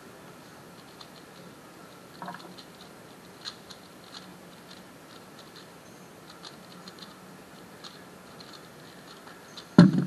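Valk 3 speedcube turned rapidly during a 3x3 speedsolve: faint, irregular plastic clicks throughout. Near the end comes a loud slap as the cube is set down and the hands stop the Speed Stacks timer.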